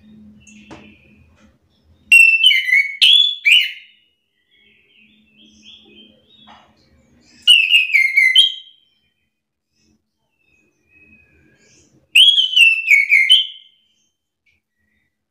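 Chestnut-capped thrush (anis kembang) singing: three loud phrases of clear, falling whistled notes, each about a second and a half long and roughly five seconds apart.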